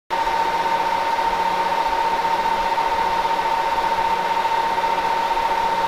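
A steady high electronic tone over even hiss, switching on and cutting off abruptly.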